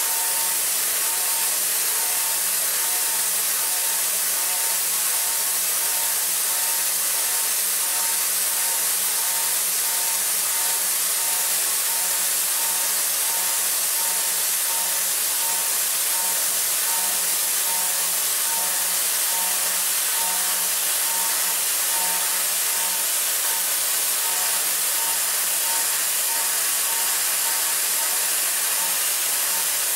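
DMG MORI CMX1100V vertical machining center high-speed milling a metal block with a Sandvik end mill in a hydraulic holder: a steady hiss over a low hum, unchanging throughout.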